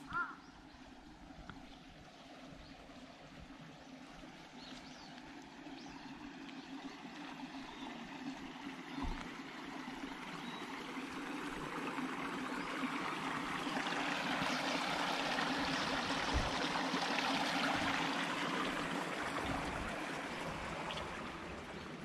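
Running water from a small stream, growing louder over the first two-thirds and then fading. A duck quacks once right at the start.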